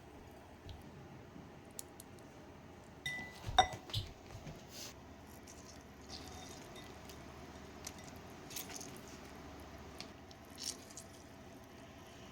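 Small objects being handled: scattered light clicks and taps, with one sharp, ringing clink about three and a half seconds in.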